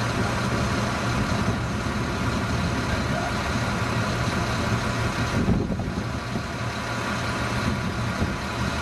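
An engine idling steadily: a continuous low hum over a dense rumble, with no change in pace.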